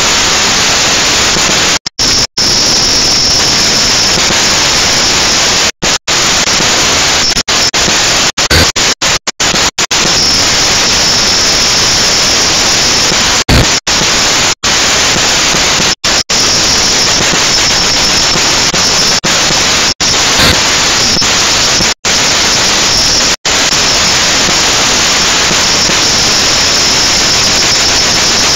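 Loud, steady static hiss with no engine or motor tone in it, broken by a dozen or more split-second dropouts to silence, clustered about eight to ten seconds in. It is the noise of the toy quadcopter's onboard camera recording, glitching as the picture does.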